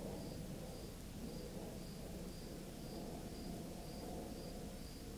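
A cricket chirping steadily, a little under two short high chirps a second, over a low rumble.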